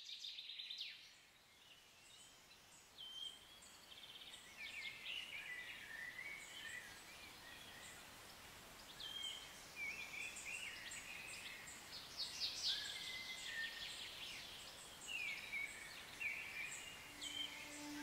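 Birds chirping and trilling, many short calls overlapping over a faint background hiss. A low sustained music note comes in near the end.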